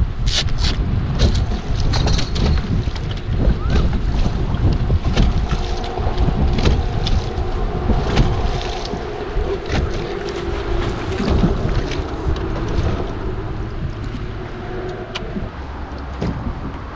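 Wind buffeting the microphone on a boat, with scattered clicks and knocks as a bass is fought and netted. A faint steady hum comes in about a third of the way through.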